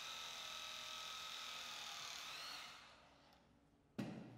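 Battery-powered hydraulic press tool running with a steady motor whine as its 54 mm press chain closes on a stainless steel press fitting. The whine rises slightly in pitch and stops as the press completes, and a short knock follows near the end.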